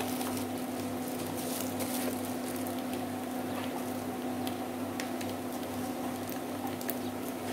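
Dried-fish fried rice frying in the pan, faint scattered crackles and sizzle, over a steady low hum.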